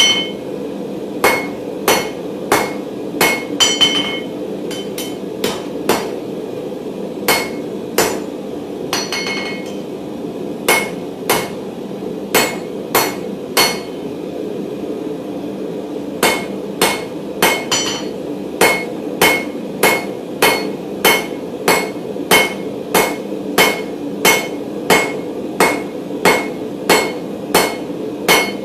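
Hand hammer striking a hot 16 mm mild steel bar on an anvil, about two blows a second in runs broken by short pauses, each blow leaving a bright metallic ring; the round bar is being forged down to a square. A steady low rushing noise runs underneath.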